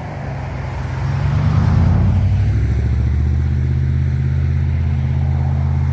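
Motor vehicle engine close by on the road: the noise swells over the first two seconds, then settles into a steady low engine hum.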